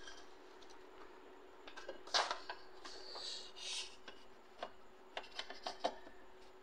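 Power cable and plug being handled and connected at the back of a printer: scattered light clicks and knocks with some rustling of cables, the sharpest click about two seconds in and a run of clicks near the end. A faint steady hum runs underneath.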